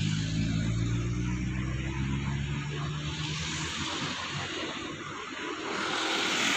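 Cars driving past on a highway. A low engine hum fades over the first few seconds, and engine and tyre noise build again near the end as another car comes by.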